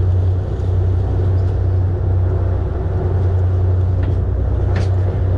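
Charter fishing boat's engine running steadily, a constant low drone with water and wind noise over it. A short sharp knock near the end.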